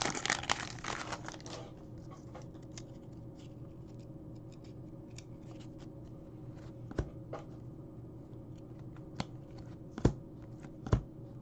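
A foil card-pack wrapper crinkling as it is torn open for the first second or two, then hockey cards being slid and thumbed through by hand, with a few sharp taps of cards against the stack in the second half.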